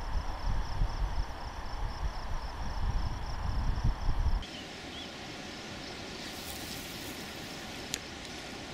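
Wind buffeting the microphone in a loud, gusty low rumble, with insects trilling steadily in a high, evenly pulsed line over it. About halfway through, the sound cuts abruptly to a quieter, steady outdoor hiss with a single faint click near the end.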